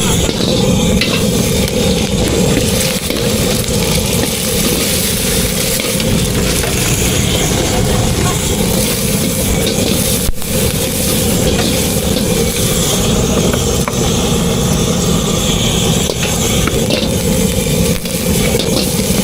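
Food frying in a hot pan with a steady sizzle and the scrape of stirring, over a steady low rumble. The sound cuts out for a moment about ten seconds in.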